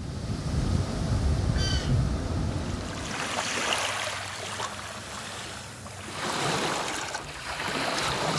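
Small waves washing up on a sandy beach, the hiss of the water swelling in about two surges in the second half. Before that, a low wind rumble with a single short bird call about a second and a half in.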